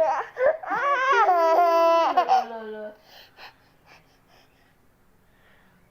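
A small child's drawn-out, high-pitched squealing vocal sound, close to laughter, lasting about two and a half seconds, with a lower voice sounding along with it and falling in pitch. Then only faint small clicks.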